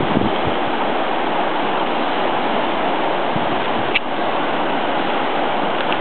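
Whitewater river rapids rushing steadily, with a brief click about four seconds in.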